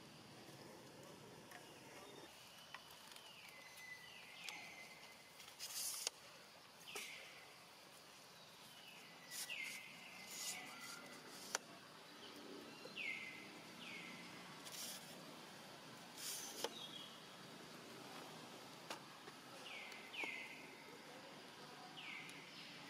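Faint outdoor ambience with short high animal calls, each sliding down in pitch, repeating every second or few. A few brief hissy bursts and single clicks occur among them.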